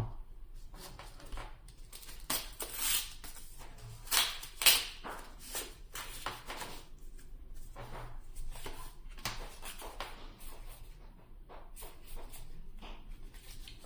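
Yu-Gi-Oh booster pack wrappers and trading cards being handled: irregular crinkling, rustling and flicking, loudest a little after four seconds in.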